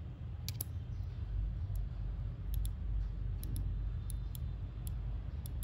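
A dozen or so scattered faint, sharp clicks from a wristwatch being handled, over a low steady hum.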